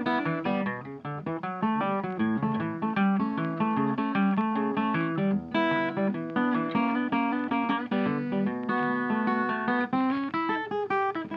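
Background music: a quick, plucked acoustic guitar tune with many fast notes.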